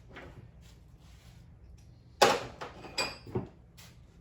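Tools being handled: a sudden loud metal clatter about two seconds in, then two lighter clinks with a brief metallic ring.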